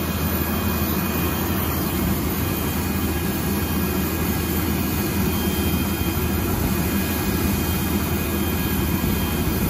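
Steady mechanical drone with a faint high whine from ground power equipment running for an Avro Vulcan's preflight checks; the bomber's own jet engines are blanked off and not running.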